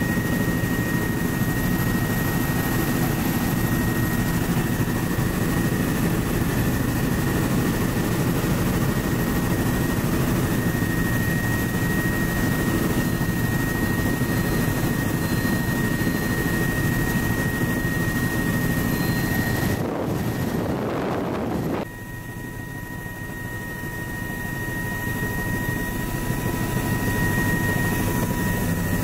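Helicopter rotor and engine in flight, heard from the open-door cabin: a steady rotor beat with wind rush and a steady high whine. About two-thirds of the way through the sound breaks off for a moment, returns quieter, and slowly grows louder again.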